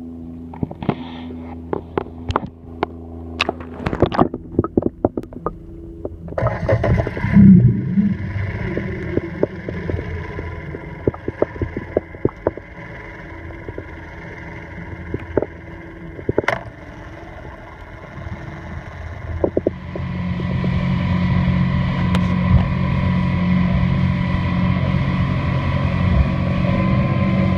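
Suzuki DF40 three-cylinder four-stroke outboard motor running: a steady low engine tone mixed with scattered clicks and knocks, and a loud thump about seven seconds in. About twenty seconds in it becomes a louder, fuller steady drone as the boat runs at speed.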